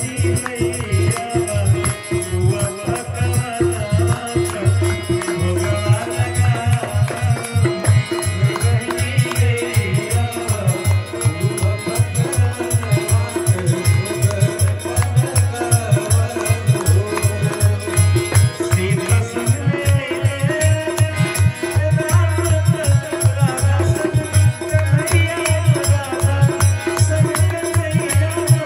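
Live North Indian devotional music: a harmonium with a man singing over it, and a dholak drum and rattling percussion keeping a fast, steady beat.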